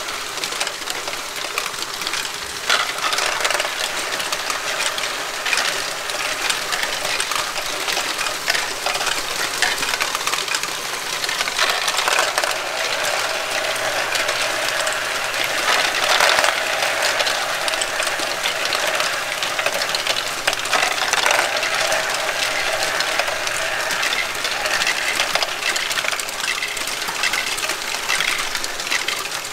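Lego Great Ball Contraption modules running: small plastic balls clattering and rolling through the lifts, ramps and funnel bowl, a dense continuous rattle of clicks over the hum of Lego motors and gears.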